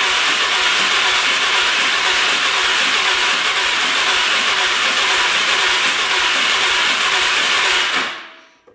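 Can-Am Outlander 400's Rotax single-cylinder engine cranking steadily on its electric starter for about eight seconds without firing, then stopping. It will not catch even with the choke on and raw fuel in the cylinder: the engine has low compression.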